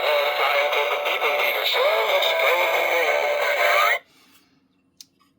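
Battery-powered singing plush toy playing its recorded song through its small built-in speaker: a synthetic-sounding sung melody with backing music that cuts off suddenly about four seconds in, followed by a single click.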